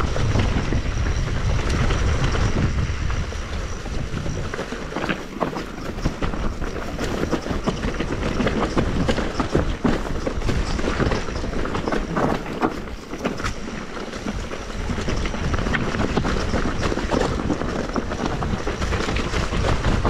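Electric mountain bike riding down a rough dirt trail: tyres rolling over dirt and stones, with a continuous dense clatter of the chain and frame rattling over the bumps.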